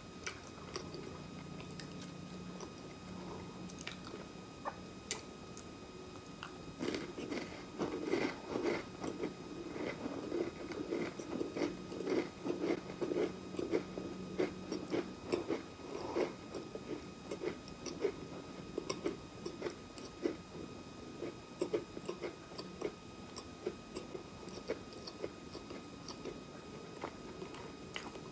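Close-up chewing of crisp round crackers sandwiched with guava jam: crunchy bites and wet chewing crackles, densest and loudest through the middle.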